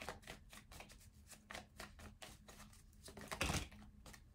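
Tarot cards being handled and shuffled: a run of soft, irregular card clicks, with a louder rustle about three and a half seconds in.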